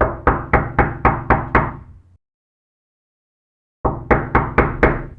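Knocking on a door: a quick run of about seven knocks, roughly four a second, dies away about two seconds in. After a silent gap, a second run of five knocks starts near the end.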